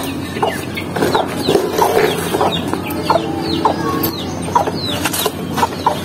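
Caged chickens clucking while chicks peep over and over in short, high, falling chirps, with a few light knocks.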